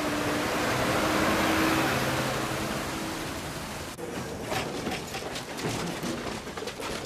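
A John Deere backhoe's diesel engine runs steadily for about four seconds. Then comes a run of cracking and clattering as an excavator tears into a wooden building and debris falls.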